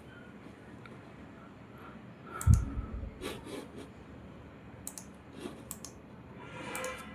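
A few scattered sharp clicks, with one heavy low thump about two and a half seconds in.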